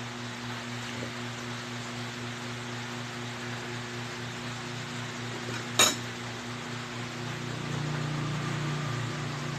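A single sharp clink of a metal spoon set down against a ceramic bowl about six seconds in, over a steady low hum.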